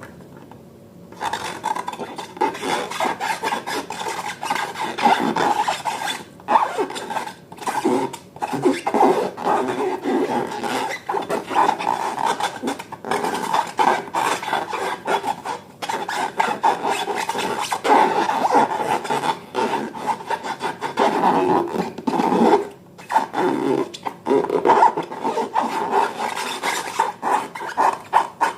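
Slime being mixed and worked, a continuous squishing and scraping sound broken by short pauses, starting about a second in.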